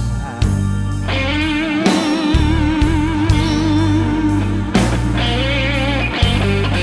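Live blues band playing an instrumental stretch between vocal lines: electric guitar, bass guitar, keyboard and drum kit. About a second in, a long wavering note is held for several seconds over the steady bass and drums.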